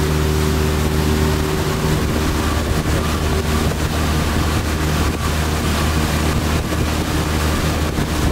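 Small fishing boat's motor running at a steady speed while the boat is underway, with wind and water noise over it.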